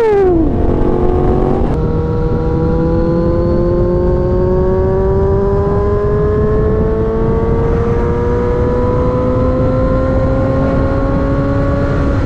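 Yamaha R1's crossplane inline-four through an SC Project exhaust, under way. The engine note drops sharply at the start, then after a break about two seconds in it pulls steadily, its pitch slowly rising, over wind rumble.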